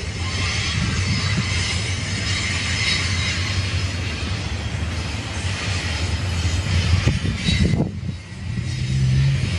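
Double-stack intermodal container cars rolling past with a steady rumble and clatter of wheels on rail, with a faint high-pitched wheel squeal over it.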